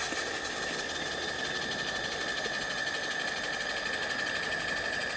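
IPG Photonics LightWELD XR handheld fiber laser welder running a wire-fed weld on 11-gauge mild steel at 1,000 watts in pulse mode: a steady, fast buzz with a constant high tone.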